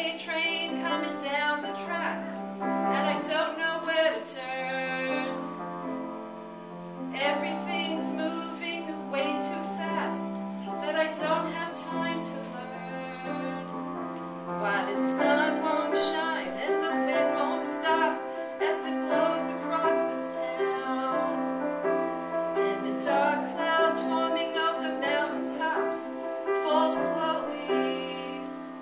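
A woman singing a song to piano accompaniment.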